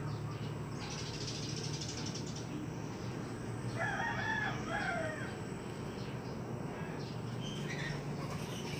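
A rooster crowing once in the background, about four seconds in, over a steady low hum.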